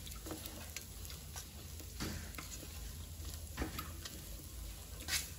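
Silicone spatula stirring and scraping fried rice in a nonstick pot: soft, irregular scrapes and taps, the loudest about two seconds in and near the end, over a low steady hum.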